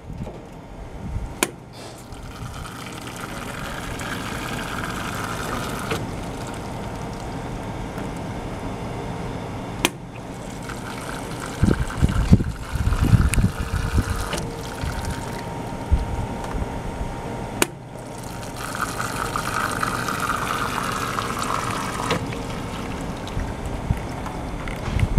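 Hoshizaki AT-250HWCA tea server pouring hot water from its nozzle onto a strainer of tea leaves, with the brewed tea trickling down into the drip tray. The flow swells three times, each rise following a sharp click about eight seconds after the last.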